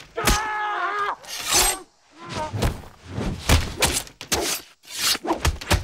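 Film fight sound effects: a fighter's drawn-out cry in the first second, then a rapid flurry of punch and kick impacts and swishing strikes.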